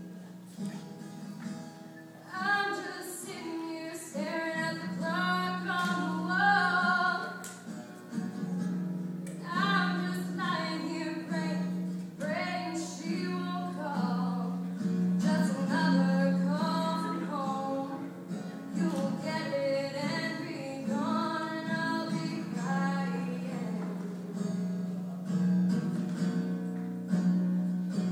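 A woman singing to her own acoustic guitar at a live performance. The guitar plays alone at first, and her voice comes in about two seconds in and carries on in phrases over the guitar.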